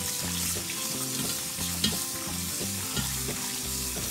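Tap water pouring into a stainless steel colander as hands rub and rinse raw chicken pieces, rinsing off salt and baking soda: a steady splashing hiss with a few small clicks.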